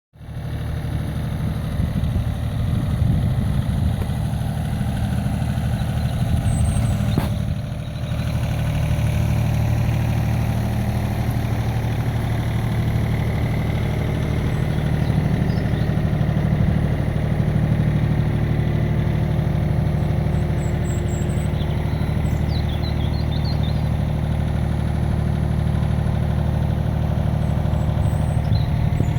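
A small excavator's engine running steadily, a low even drone with a brief dip about seven seconds in.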